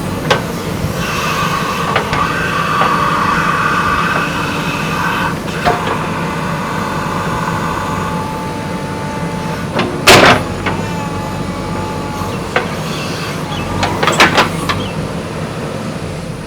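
JCB 3DX backhoe loader's diesel engine running under load, with a whine over it for the first few seconds. Sharp clanks break in several times, the loudest about ten seconds in and a quick cluster near fourteen seconds.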